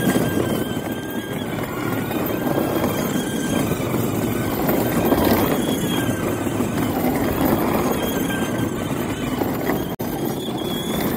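Kid Trax 12-volt ride-on toy zero-turn mower driving on concrete: its small electric motors and gearboxes whine steadily over the rumble of its plastic wheels rolling on the pavement.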